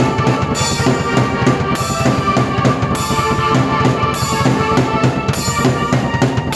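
Drum kit and keyboard played together: a steady beat of bass drum and snare with cymbals, under held keyboard chords.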